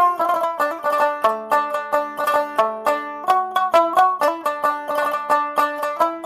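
Background music: a quick, bright melody of plucked-string notes, about five a second, over a steady lower drone.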